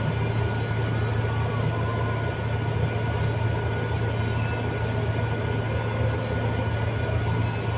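Truck diesel engine running at low revs, heard from inside the cab as a steady low hum, with a faint steady high tone over it.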